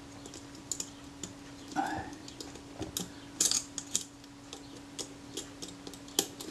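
Small metal camera parts clicking and ticking now and then as a steel bracket is wriggled into place in the chassis of a Rolleiflex Automat TLR, over a steady low hum.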